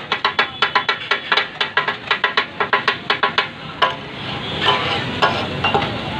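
Two metal spatula blades clacking in a fast, even rhythm on a large flat griddle (tawa) as kata-kat is chopped, about five strikes a second. A little under four seconds in the rhythm breaks off, leaving the food sizzling on the hot griddle with a few scattered strikes.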